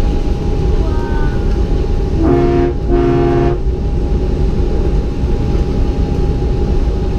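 Two short toots of a train horn, the second slightly longer, sounding just before the middle over a loud, steady rumble of running noise with a thin constant whine.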